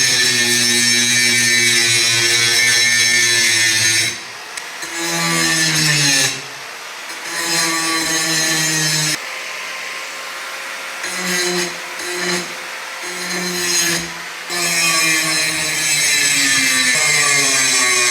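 Power grinder grinding a steel hatchet head forged from a coil spring. Long stretches of loud, hissing grinding alternate with lighter passes, and the motor's pitch sags under load and climbs back when the pressure eases.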